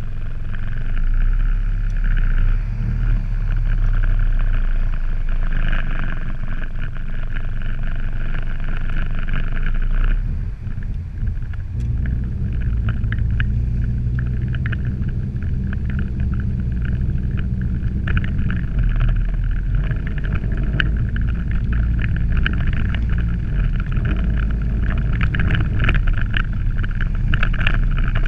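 A car driving along a city street, heard through a camera mounted outside the car: a steady low rumble of road and wind noise on the microphone, with many small clicks and rattles through the second half.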